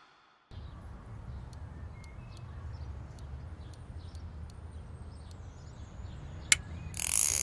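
Outdoor ambience: a steady low rumble with faint, short bird chirps and small ticks above it. A sharp click and a brief burst of hiss come near the end.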